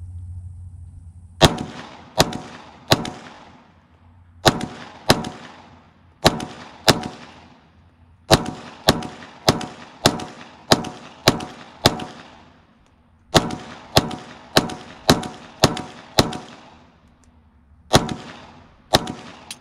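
Glock 45 9mm pistol firing about twenty shots, each a sharp crack with a short ringing tail. They come in strings of two to seven shots about half a second apart, with pauses of one to two seconds between strings.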